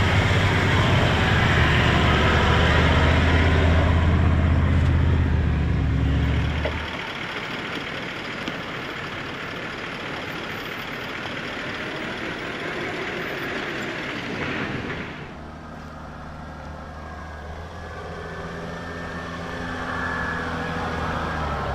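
Four-wheel drives on a gravel track. For about the first seven seconds a Toyota Land Cruiser 76's V8 turbo-diesel runs loud and steady. After a cut comes a steady rush of wind and tyre noise from a camera mounted on the moving vehicle. About fifteen seconds in, a Land Rover Discovery's engine approaches, growing louder near the end.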